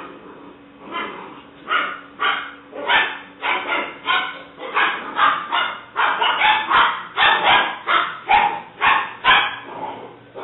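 English Springer Spaniel puppy barking over and over, a string of short, high barks about two a second that come quicker and louder midway.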